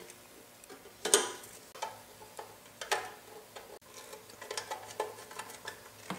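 Scattered small clicks and metallic clatter of hands and a small tool working among the wires and terminals inside a motor starter's metal box. There is a sharper clack about a second in, another near three seconds, and a run of light clicks toward the end.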